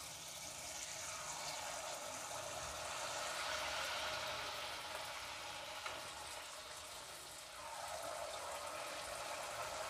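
Gulgula batter frying in hot oil in a kadhai: steady sizzling and bubbling. It swells about a second in and again near the end as more batter is dropped into the oil.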